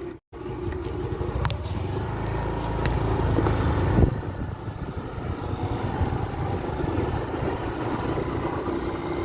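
Motorcycle engine running while riding, under a dense low rumble of wind on the microphone. It swells about four seconds in and eases a little after.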